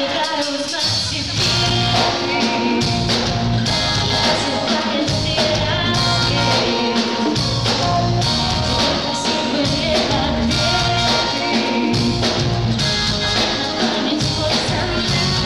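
Live pop-rock band playing a song, with a steady drum beat under the instruments and a woman singing.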